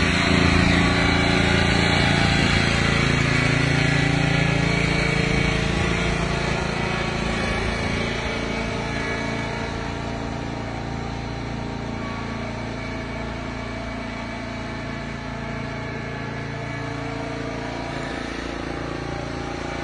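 Riding lawn mower's small engine running steadily as the mower drives away, growing fainter over about the first ten seconds and then settling into a low, steady hum.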